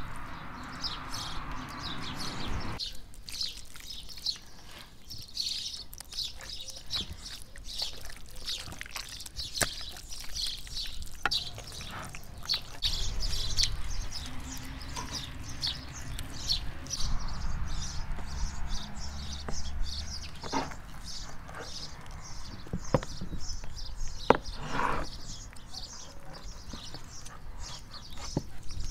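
Small birds chirping and singing in quick, repeated notes, with soft handling noises of raw meat on a wooden board and a few light knocks.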